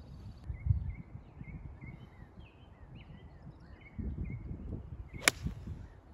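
A single sharp, crisp click of a golf iron striking the ball on a full swing, about five seconds in. Birds chirp repeatedly throughout.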